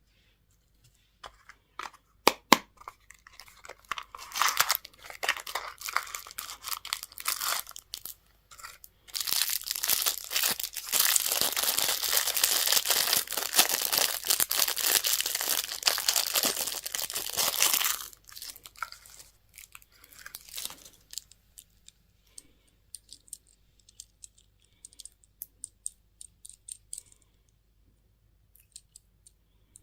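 Wrapping being torn open and crinkled: scattered crackles and clicks, then about nine seconds of dense continuous crinkling, thinning to sparse small crackles near the end.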